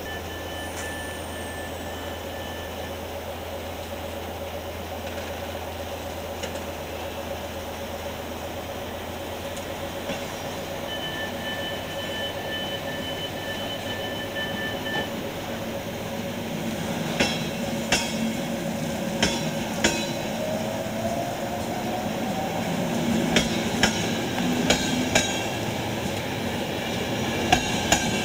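Diesel locomotive idling with a steady drone, twice joined for a few seconds by a high steady tone. In the last third, rail wheels knock and clack over rail joints and points as a train moves.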